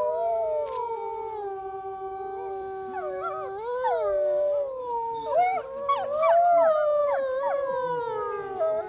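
Several wolves howling together. Long, drawn-out howls overlap from the start, and from about three seconds in more howls join, rising and falling sharply in pitch.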